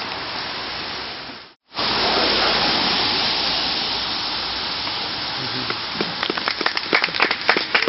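A steady rushing noise, cut by a short dropout about a second and a half in. About six seconds in, a small group starts clapping as the cover is lifted off the stone bench.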